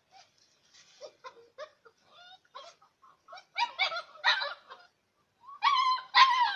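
Six-week-old bhote kukur (Himalayan mastiff-type) puppies barking and yipping at each other in play: scattered small high-pitched yips at first, then two louder bursts of barking, one about midway and one near the end.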